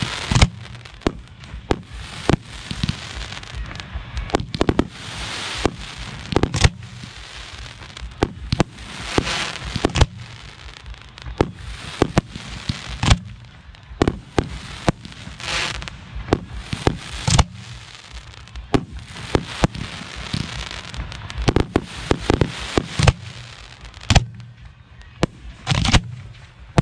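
Professional 1.3G display fireworks: aerial shells firing from mortar racks and bursting in rapid succession, dozens of sharp bangs with stretches of crackling between them.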